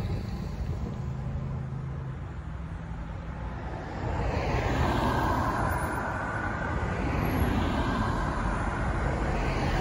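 Road traffic: a low steady rumble, then from about four seconds in the louder tyre and engine noise of a car coming up and passing close by.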